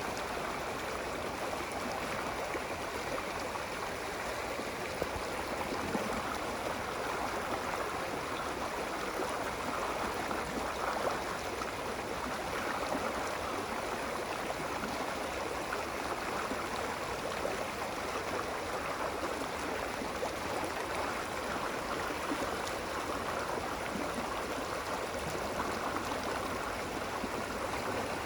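Running water: a stream flowing steadily with a continuous gurgling rush.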